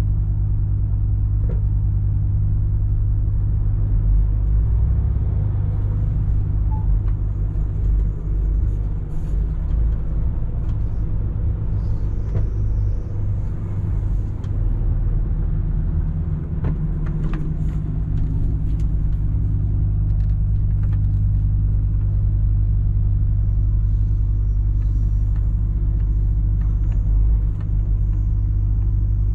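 MAN TGX 18.460 truck's straight-six diesel running at a steady cruise, a low continuous drone with road rumble. The engine note shifts briefly about halfway through, then settles again.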